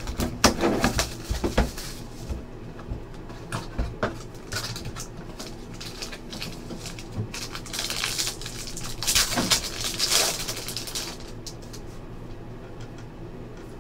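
Hands opening a trading-card box and its foil-wrapped pack: taps and scrapes of the cardboard box at first, then a louder stretch past the middle of the foil wrapper crinkling and tearing, and the stack of cards being handled.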